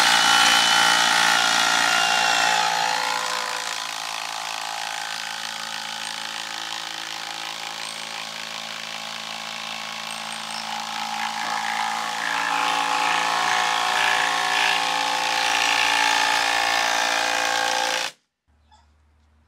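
Makita DTD153Z 18V impact driver hammering a long thin screw into wood: a rapid, continuous clatter of impacts over the motor. The impact driver is straining, needing a long time to sink the long screw. The sound stops abruptly near the end.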